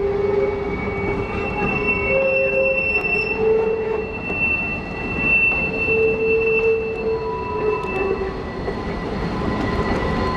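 Cass Scenic Railroad passenger cars rolling slowly past on curved track, their wheels squealing in several held tones that rise, fall and overlap over a steady rolling rumble.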